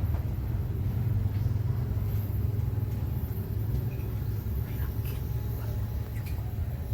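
A steady low mechanical rumble, like an engine running, with a few faint light clicks on top.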